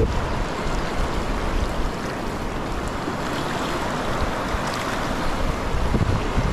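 Fast, shallow river rushing steadily over rocks in rapids, with wind buffeting the microphone in low rumbling gusts near the start and end.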